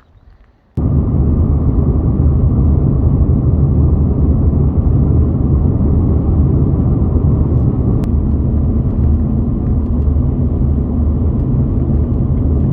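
Steady, loud road and engine rumble inside a moving van at highway speed, starting abruptly about a second in.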